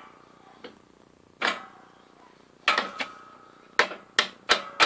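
Hammer striking a steel drift to drive a shaft out of an Atlas quick-change gearbox: a few separate metal knocks, then from about four seconds in quick taps about three a second, each with a short metallic ring.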